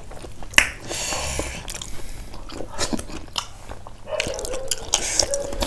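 Close-up eating sounds: chewing and biting on buffalo-trotter meat and dhido, with scattered wet mouth clicks and a short hiss about a second in. A brief murmured voice comes near the end.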